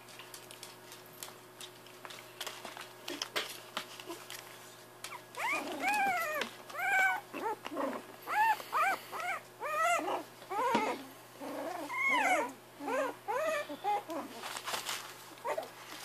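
Jack Russell Terrier puppies play-fighting. One gives a string of short, high, arching yelps, about two a second, over several seconds. Before that there are light scratches and rustles of paws on the blanket and newspaper.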